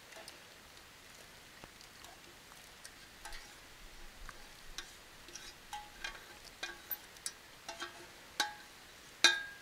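Metal utensil clinking and scraping against a metal camp cooking pot, scattered sharp taps that ring briefly, coming more often toward the end with the loudest clink about nine seconds in.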